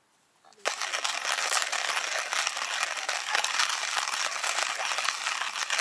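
Hand-cranked coffee grinder grinding coffee beans: a dense, steady crunching that starts suddenly just under a second in.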